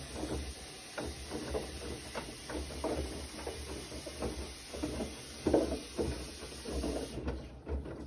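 Bosch front-loading washing machine in its wash cycle: the drum turning and wet laundry sloshing and splashing in the water, in irregular surges two to three a second, over a steady low hum.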